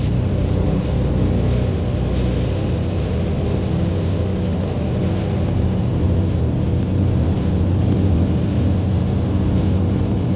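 A steady, low machine hum that runs on evenly without letting up.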